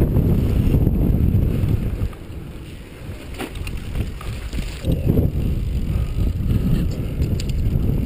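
Mountain bike descending a dirt trail: wind buffeting the camera's microphone over the rumble of tyres on packed dirt. The noise drops for about a second around two seconds in, then picks up again with a few clicks and rattles.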